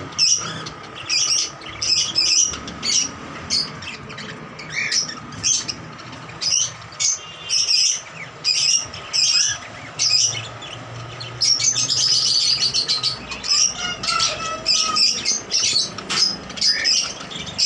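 Caged rose-ringed parakeets chirping: short, sharp, high calls, several a second in irregular runs, with a dense burst of calls about twelve seconds in.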